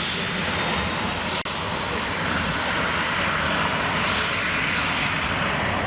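Aero L-29 Delfin jet trainer flying past, its turbojet making a steady high whine over a loud rush of jet noise.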